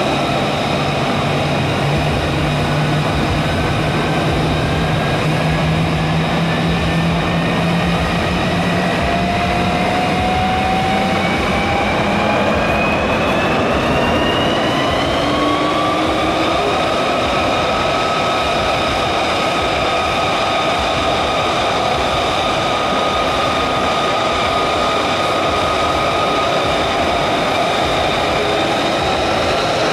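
F-35 jet noise in flight, a steady loud rush with whining tones. One whine rises in pitch over several seconds midway and then holds steady.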